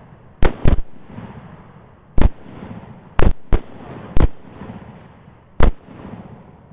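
A rapid, irregular volley of about eight rifle shots from an AR-10 and a second hunter's rifle, some only a quarter second apart, each trailing off in a rolling echo.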